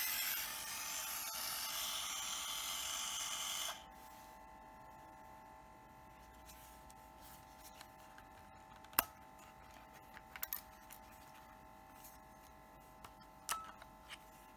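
The Olympus SuperZoom 80G compact 35mm camera's small built-in electric motor whirs steadily and stops abruptly about four seconds in. This is followed by a few light plastic clicks from handling the camera, with a sharper click near the end as the back-cover latch is released.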